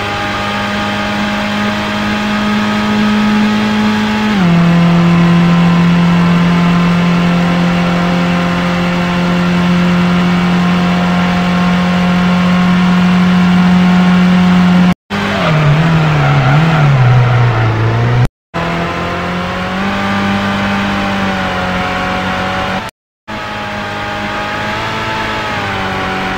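Car engine running at a steady drone while driving, its pitch stepping down once about four seconds in, then wavering up and down. The sound is spliced together, with three abrupt cuts to brief silence.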